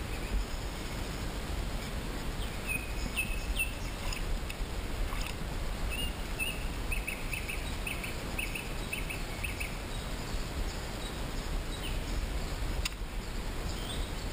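Outdoor ambience with a steady low rumble, over which a small bird calls in a run of short, high chirps from a few seconds in until about ten seconds in.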